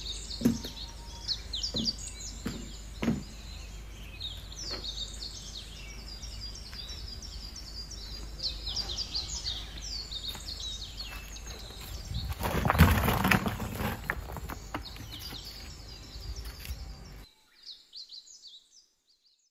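Small birds chirping repeatedly outdoors, with a few sharp knocks in the first few seconds and a louder rustling, scraping noise for about two seconds in the middle. The sound cuts off abruptly near the end, leaving a few faint chirps.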